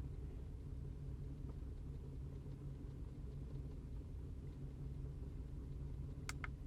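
2005 Cadillac CTS's 2.8-litre V6 idling rough and misfiring: a steady low engine sound. Two short clicks near the end.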